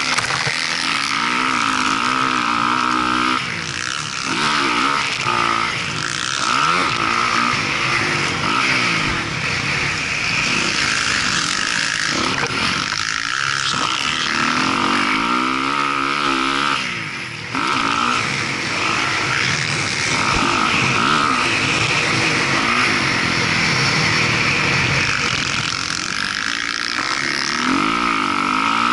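Motocross dirt bike engine, heard from on board, revving up and down again and again as it is ridden hard around the track. A steady wind rush runs underneath, and the engine briefly drops off a little over halfway through.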